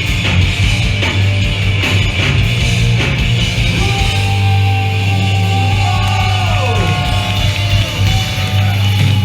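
Hardcore punk band playing live at full volume: heavy distorted guitar and bass with drum hits, then sliding, falling guitar notes from about the middle on.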